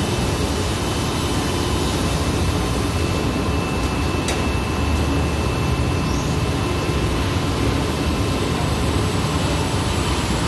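Steady industrial machinery noise in a textile dyeing plant: jet dyeing machines with their pumps and fans running, a constant low rumble with a faint high whine over it and a single click about four seconds in.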